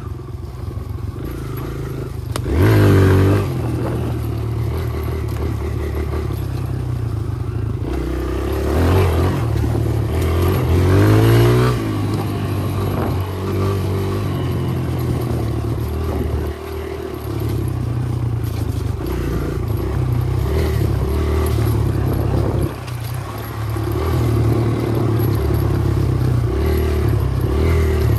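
Kawasaki KLX140 dirt bike's single-cylinder four-stroke engine running under way. The revs climb several times as the throttle is opened, and the engine eases off twice in between.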